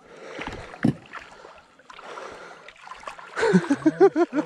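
River water sloshing and splashing around a hooked asp being brought in through the shallows, with one sharp sound about a second in. A man's voice calls out near the end, the loudest part.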